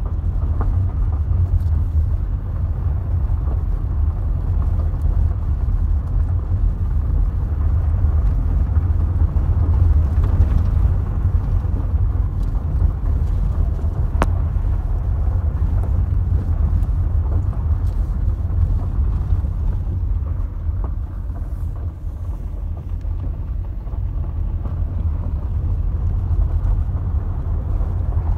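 Steady low rumble of a car driving on a gravel road, heard from inside the cabin: tyre and engine noise, with a few faint clicks.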